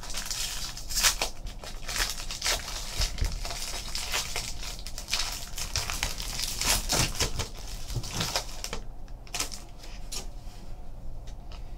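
A trading card pack being opened by hand: its wrapper crackling as it is torn open, then the cards rustling and sliding as they are pulled out and handled. The sound is a quick, irregular run of crackles and rustles.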